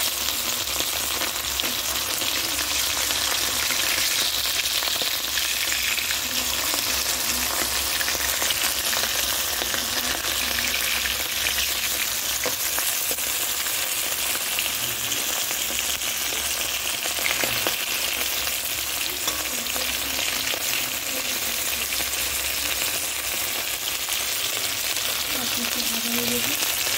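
Whole bata fish sizzling steadily as they fry in hot oil in a wok, with a few taps of a metal spatula as they are moved.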